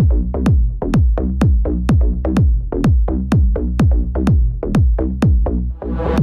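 Electronic background music with a steady drum-machine beat of deep, pitch-dropping kick drums and light ticks between them. A rising hiss swells in near the end.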